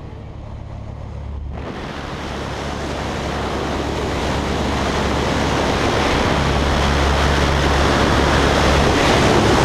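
Wind rushing past the open door of a small jump plane at altitude, over the steady drone of its engine. The rush of air sets in about a second and a half in and grows steadily louder.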